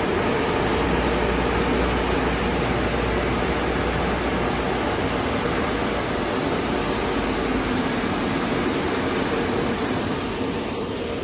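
MacNeil car wash tunnel's bank of electric dryer blowers running, a loud steady rush of air with a constant hum, blowing a car dry at the end of the wash. The level eases off slightly near the end.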